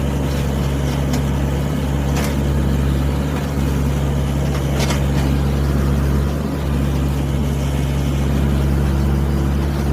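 Excavator's diesel engine running steadily, with two short knocks about two and five seconds in.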